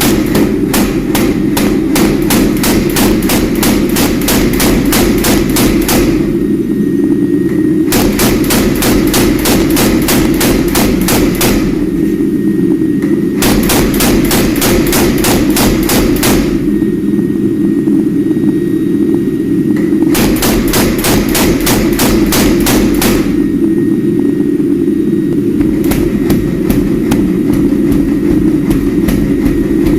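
Rapid, evenly spaced hammer blows on steel at the forge, about four or five a second, in bursts of several seconds separated by short pauses, over a steady low drone.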